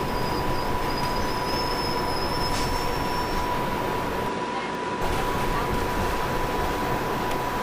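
Interior noise of a New Flyer D60LFR articulated diesel city bus under way: steady engine and road noise with a steady whine, and a faint high whistle in the first half.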